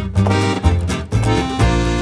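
Instrumental background music with a bass note about every half second under held melody notes.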